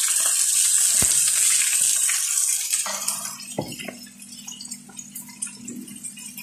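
Chicken breast frying in hot oil in a frying pan: a loud sizzling hiss that fades about three seconds in. A short utensil knock comes about a second in and another near the middle, and a low steady hum is left underneath once the sizzle drops.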